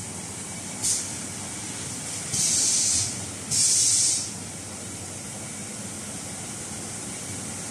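Packaging machinery running with a steady low hum, cut by three bursts of compressed-air hiss: a short one about a second in, then two longer ones, each under a second, a little later.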